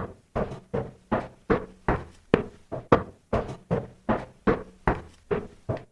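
Hurried footsteps on wooden stairs: a steady run of about sixteen hollow thuds, close to three a second.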